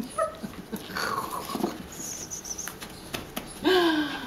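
Wire-haired dachshund making short whimpering sounds while held, amid soft rustling and handling clicks.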